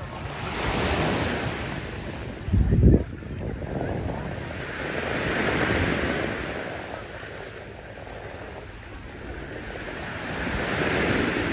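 Small waves breaking and washing up a sandy shore, the surf swelling and falling back about every five seconds. A brief low buffet of wind on the microphone about two and a half seconds in is the loudest moment.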